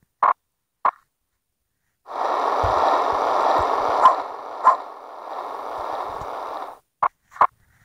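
A dog barking in short single barks, twice near the start and twice near the end. Between them is a rough, noisy sound lasting about five seconds, with a couple of sharp clicks in it.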